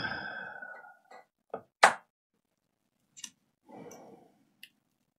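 A few separate sharp clicks and knocks of a laptop motherboard and chassis being handled and pressed into place, the loudest about two seconds in, with a brief scuff of handling a little before the last click.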